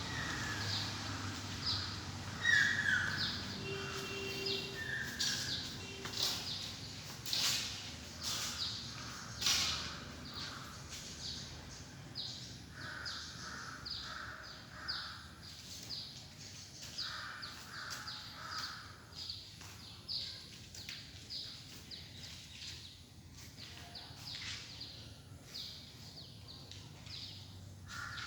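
Birds calling outdoors: a high chirp repeats about twice a second throughout, with scattered groups of lower, harsher calls. A few sharp clicks come early on.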